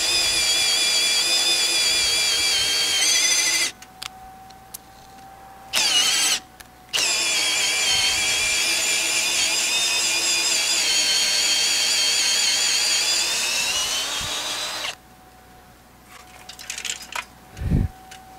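Cordless drill turning a long auger bit, boring a peg hole down through a roof purlin into the timber post beneath. It runs in three goes: a few seconds, a short burst, then about eight seconds more before stopping.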